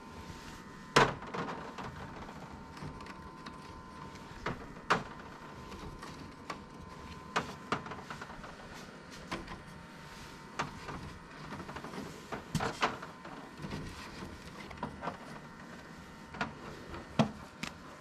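Quail eggs being lifted out of a plastic turner rack and set down on an incubator's wire mesh floor: scattered light clicks and taps at irregular intervals, a few sharper ones, over a faint steady hum.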